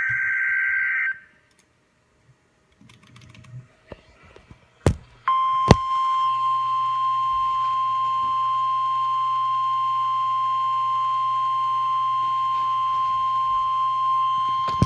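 NOAA Weather Radio Emergency Alert System broadcast. It opens with the last second of a buzzy digital SAME data burst, the coded alert header. After a pause with two sharp clicks, the steady single-pitch weather radio alert tone sounds for about ten seconds, signalling an incoming severe weather alert.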